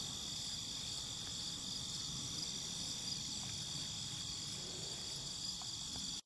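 Steady outdoor insect chorus: a high-pitched ringing of several overlapping unbroken tones. It cuts off abruptly at the very end.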